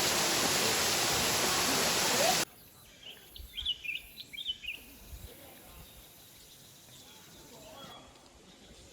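Steady rush of water that cuts off abruptly about two and a half seconds in. It gives way to a much quieter stretch with a few short, high bird chirps.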